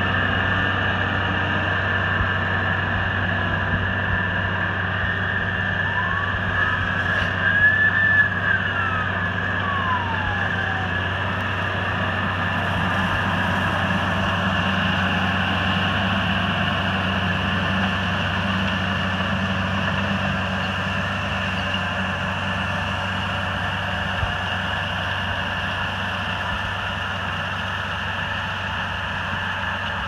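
New Holland T7.270 six-cylinder tractor engine running steadily under load, pulling a Kuhn power-harrow combination drill, with a steady high whine over the engine. The whine's pitch slides up and back down once in the first third.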